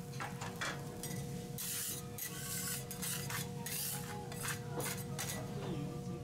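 Metal spatula scraping across a steel teppanyaki griddle in repeated short, irregular strokes, over a steady low hum.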